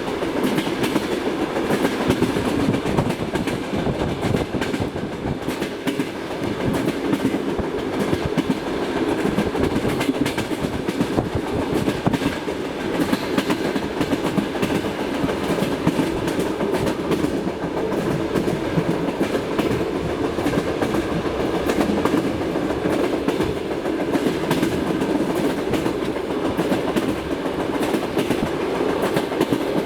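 Passenger train wheels clattering over rail joints at running speed, a steady, dense run of knocks over a continuous rumble, with the knock of wheel flats (skid-worn flat spots on the wheels) among them.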